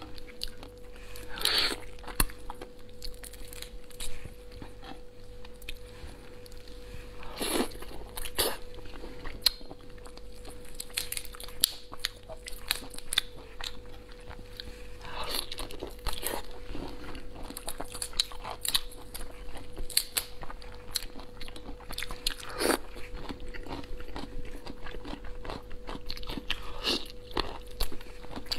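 Close-miked eating of raw tiger prawns: wet chewing and crunching, with sharp crackles as the shells are pulled apart by hand and several louder sucking sounds scattered through. A faint steady hum runs underneath.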